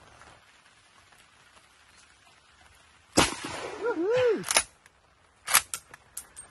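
A single shot from a Schmidt-Rubin G1911 rifle in 7.5×55mm Swiss, about three seconds in, with a short rising-and-falling tone just after it. Then the long straight-pull bolt is cycled, back and home, in a few sharp metallic clicks.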